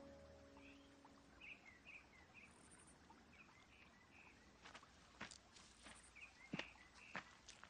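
Faint outdoor ambience with small birds chirping now and then, then footsteps crunching on gravel from about halfway through.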